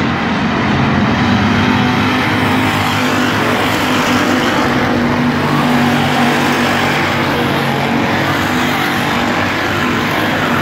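Engines of a pack of full-bodied stock cars racing together, a loud steady din of many engines at once, with cars passing close by partway through.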